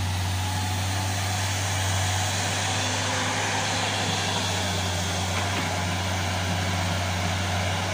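Tata Hitachi crawler excavator's diesel engine running steadily while the machine digs and moves earth.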